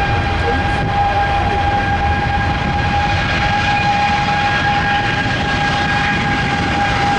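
Boeing 777-200ER's jet engines running at power during its take-off run: a steady high whine over a low rumble.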